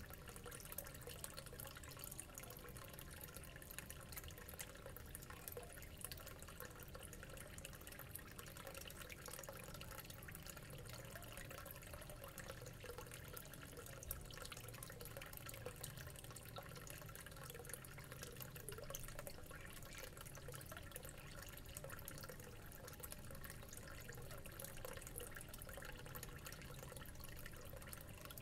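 Faint, steady bubbling and trickling of water from aquarium aeration, with air bubbles breaking at the surface of a fish tank.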